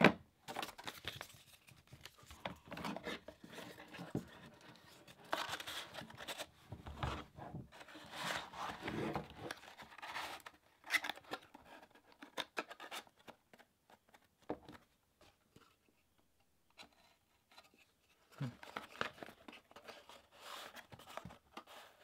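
Hands packing a multi-tool away: a leather sheath handled, then a cardboard box's flap tucked shut and the box slid into a cardboard sleeve, giving rustling, scraping and small knocks. A sharp click comes right at the start.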